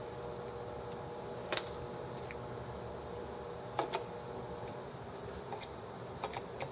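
A few light, sharp clicks and taps of small metal engine parts and tools being handled while a model hit-and-miss engine is taken apart, over a steady faint hum. One click comes about a second and a half in, two come close together about four seconds in, and a few more come near the end.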